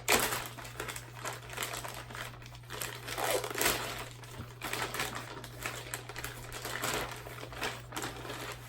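Plastic packaging crinkling and crackling irregularly as a package is cut open with scissors and pulled apart, with the loudest crackle right at the start.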